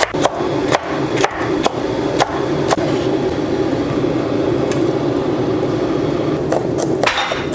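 Kitchen knife chopping bell peppers on a wooden cutting board: sharp knocks about twice a second, thinning out midway and returning near the end, over a steady background hum.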